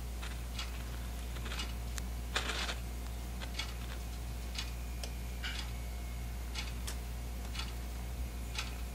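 Faint, regular ticking, about one tick a second, over a steady low hum. A brief louder scratchy rustle comes about two and a half seconds in.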